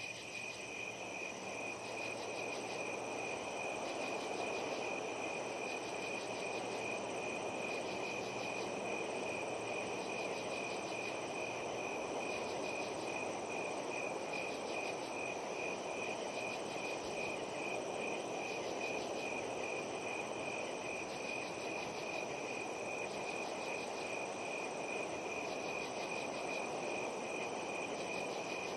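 Ocean surf washing steadily on the shore, with crickets chirping in a fast, even pulse and a steady high insect drone above it.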